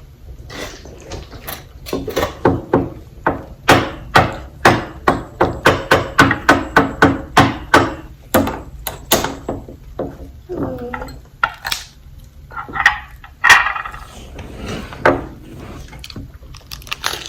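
Close-miked chewing of a crispy fried chicken sandwich: a quick, even run of sharp crunches and wet mouth smacks, about two or three a second, that then slows to scattered smacks with a few short voiced mouth sounds.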